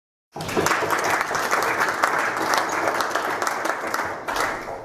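Audience applauding, many hands clapping at once. The applause cuts in abruptly just after the start and dies away near the end.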